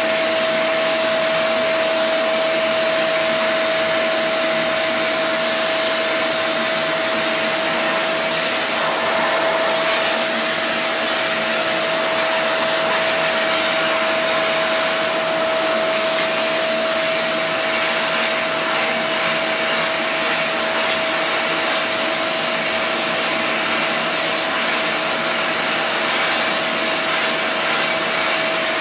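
Vacuum cleaner running steadily, a constant rush of air with a steady whine from its motor.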